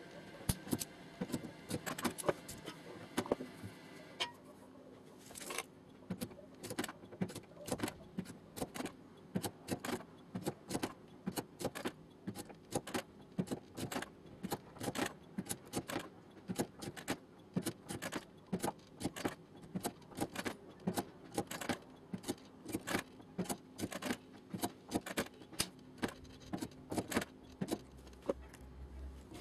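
Light, repeated metallic taps on a car door panel, about two a second, as a dent is worked out with a body hammer during finish straightening.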